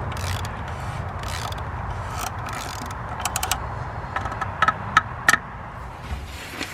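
Hand work on parts and tools: a steady scraping rustle, then a handful of sharp, ringing metallic clicks in small clusters from about three seconds in.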